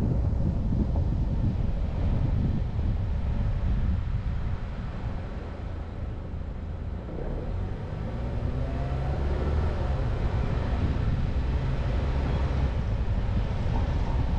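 Car driving on a town street: steady low road and engine rumble, quieter for a few seconds around the middle and then louder again.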